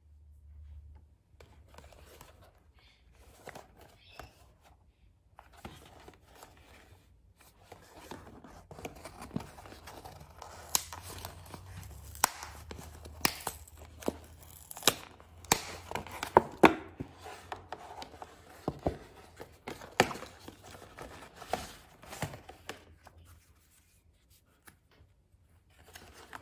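Hands opening a printed cardboard stationery package and handling the paper goods inside: soft rustling, with a run of sharp snaps and clicks through the middle.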